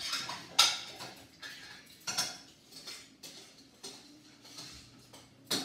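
Kitchen clatter: dishes and utensils clinking and knocking now and then, the sharpest knock about half a second in.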